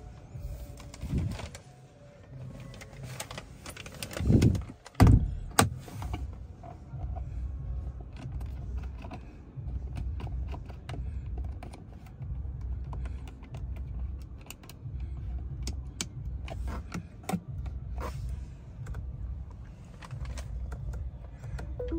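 Scattered clicks of a ChangAn CS55 Plus's dashboard switches and steering-column stalk being worked, with two heavier thumps about four and five seconds in, over a low steady rumble.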